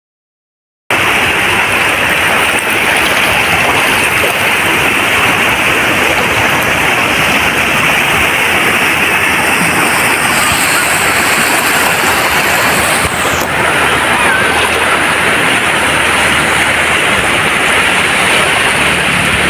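Sea surf at a beach: a steady, loud rush of breaking waves with no distinct surges, starting suddenly about a second in.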